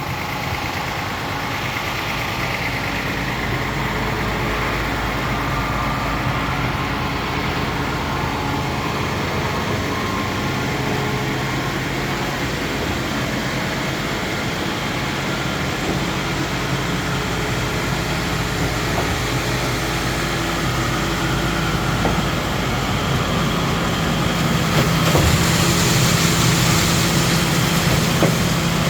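Diesel engine of concrete-placing machinery running steadily. It grows louder with a hiss about 25 seconds in.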